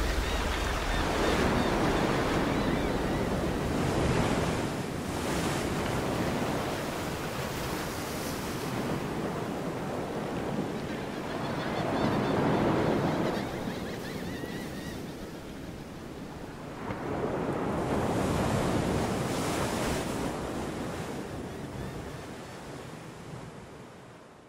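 Ocean surf: waves breaking and washing up the shore, swelling and easing every few seconds, then fading out near the end.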